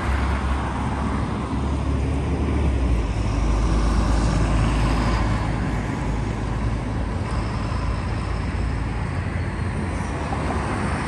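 Road traffic passing on a city street, a steady low engine rumble that swells about midway as a city bus drives by close.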